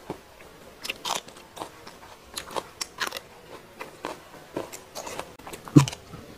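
Close-up crunching and chewing of raw vegetables: a run of irregular crisp bites and crunches, the loudest one near the end.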